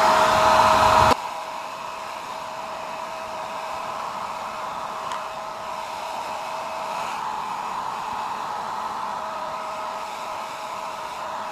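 Handheld hair dryer running steadily with a steady hum. About a second in, it drops suddenly to a quieter level and carries on evenly.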